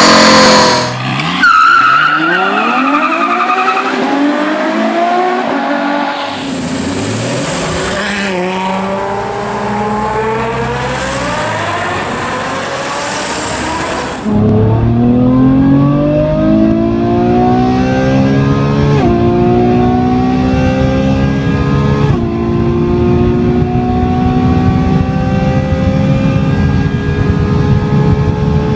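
Ferrari F12 Berlinetta's V12 engine. For the first half its pitch repeatedly falls and rises, with a hiss high up. About halfway through it abruptly gets louder and accelerates hard, its pitch climbing with upshifts at roughly two-thirds and three-quarters of the way through.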